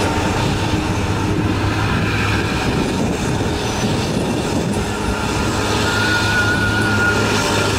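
Diesel engines of loaded heavy trucks climbing a steep grade, the nearest a three-axle Isuzu tronton, running under load with a steady deep drone and rumble. A thin higher whine comes in briefly about six seconds in.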